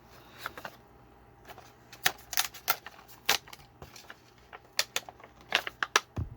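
Packaging of a diecast toy car being handled and opened by hand: irregular sharp clicks and taps, coming thicker about two seconds in.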